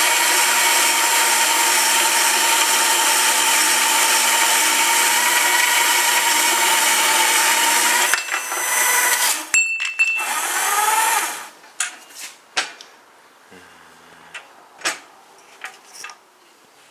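A 5-inch (125 mm) RB-125 band saw running steadily with a held whine for about eight seconds, then shutting off and spinning down. After that come a few light clicks and knocks.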